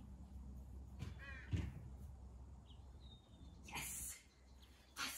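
Faint outdoor ambience with a short run of quick bird call notes about a second in, followed by a soft thump and two brief rustling noises later on.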